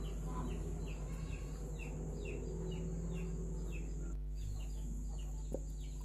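A bird chirping over and over, short falling chirps about twice a second, over a steady high-pitched tone and a low hum.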